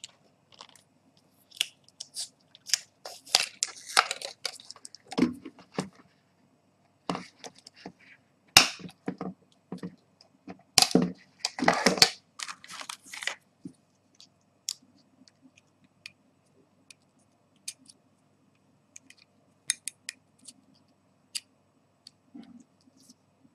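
Handling noises: irregular clicks, snaps and crinkly rustles as a cardboard phone box is moved and a plastic SIM card is taken out and fitted into a Samsung Galaxy Nexus, with a few louder crunching rustles in the middle.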